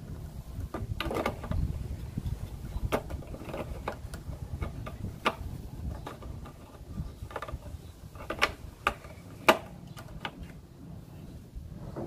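Irregular plastic clicks and taps from hands working the bulb sockets and wiring of a pickup's tail-light housing, the loudest about nine and a half seconds in.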